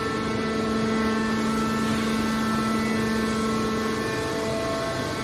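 Hydraulic aluminum can baler's pump and motor running with a steady hum at a constant pitch.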